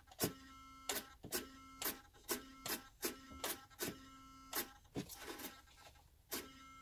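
Steering servo of a WPL B-36 Ural RC truck swinging the front wheels back and forth, with repeated sharp clicks about two a second and a steady electric hum between them. The hum is the servo straining against the stops: the steering knuckle bosses hit the wall before the servo reaches the end of its travel.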